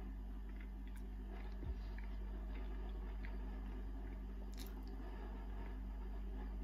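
A person chewing a mouthful of lightly salted mackerel, with faint wet mouth clicks, over a steady low hum. A short low bump comes a little under two seconds in.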